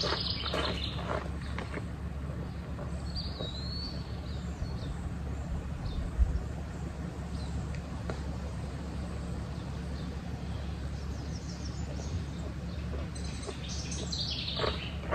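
Woodland ambience with a steady low rumble and a single short bird chirp about three seconds in. A dull thump comes around six seconds, and clothing rustles at the start and again near the end.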